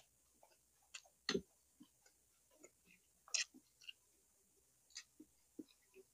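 A person eating close to the microphone: faint, irregular chewing clicks and mouth smacks, about a dozen in all, with two louder ones about a second in and past the middle.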